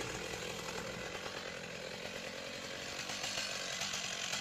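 Chainsaw engine running steadily at a fairly constant pitch.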